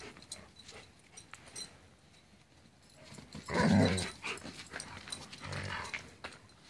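Alaskan Malamutes vocalizing: a short, low bark-like call about three and a half seconds in, then a quieter one about two seconds later.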